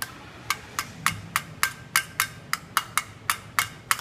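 Pliers tapping the two push rods of a dual-flush button down into the flush valve: a quick run of light, sharp clicks, about three to four a second.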